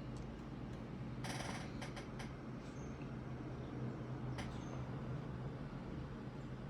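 Faint clicks and a brief rattle of plastic keycaps being handled, over a steady low electrical hum.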